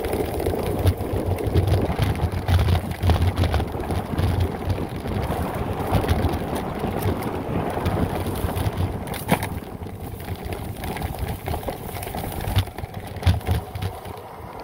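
Specialized Turbo Levo electric mountain bike riding fast down a dirt trail: wind buffeting the microphone over a steady rumble of tyres and frame, with scattered rattles and clicks and one sharp knock about nine seconds in. The rumble eases somewhat for the last few seconds.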